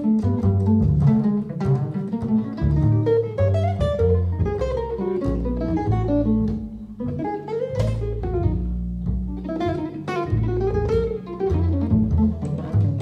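Jazz duo of archtop guitar and double bass: the guitar plays quick runs of single notes over the plucked double bass's low line.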